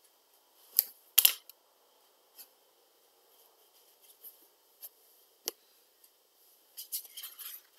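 Sharp light clicks and taps of watercolour painting tools being handled and put down: two loud clicks about a second in, scattered single ticks after, and a short flurry of small clicks near the end.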